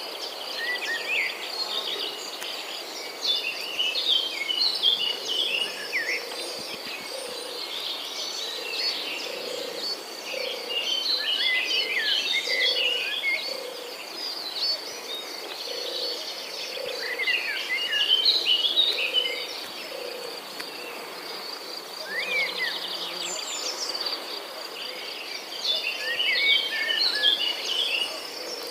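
Outdoor morning nature ambience: a steady high insect trill runs throughout, while a songbird sings bursts of quick chirping phrases every few seconds. A low note repeats roughly once a second beneath them.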